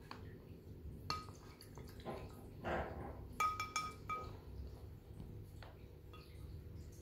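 A wooden stick stirring coloured water in a glass bowl, knocking against the glass with short ringing clinks: one about a second in and a quick run of three or four a little past the middle.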